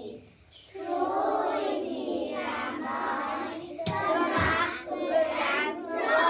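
Children singing a song together, with a single thump about four seconds in.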